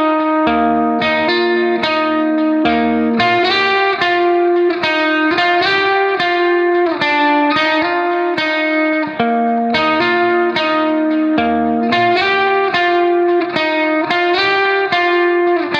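Background music: an instrumental track of plucked guitar notes in a steady, quick rhythm.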